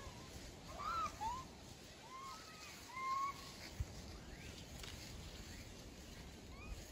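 Japanese macaques giving short, clear coo calls, each rising and falling in pitch. A cluster comes about a second in and another a second or two later, over a faint outdoor background.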